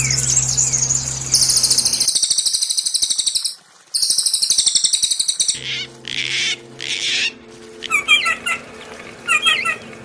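Small songbirds singing: a loud, fast, buzzy trill that breaks off briefly around the middle and resumes, then harsh chattering bursts, and short repeated whistled phrases near the end. A low steady hum lies under the first and later parts.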